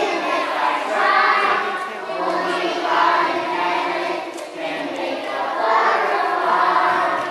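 A group of young children singing a song together in unison, in phrases that swell and fade every second or two.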